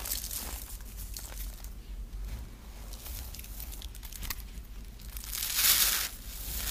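Hands crumbling dry, crumbly dyed material with scattered soft crackles, then squeezing a crumbly blue block apart in both palms with a louder, denser crunch about five and a half seconds in.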